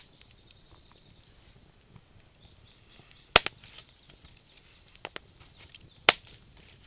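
Wood campfire crackling: scattered sharp pops of burning wood, two of them loud, about halfway through and near the end, over a faint steady hiss.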